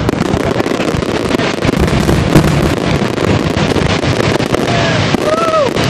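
Aerial fireworks going off in a dense run of bangs and crackling. Near the end comes a short whistling tone that rises and falls.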